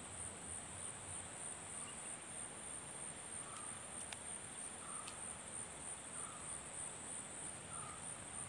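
Insects chirring in a steady, high-pitched drone, with a soft short call repeating about once a second beneath it.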